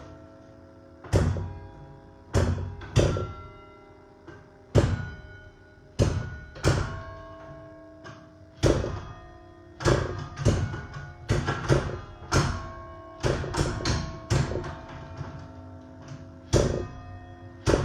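Church tower bells played as a carol melody: single bells struck one after another, each with a sharp attack and a long ringing tail that overlaps the next note. The notes come slowly and unevenly at first and more quickly in the second half.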